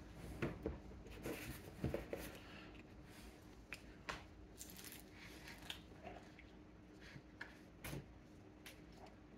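Faint scattered clicks and rustles of a pizza slice being pulled free and eaten, with chewing.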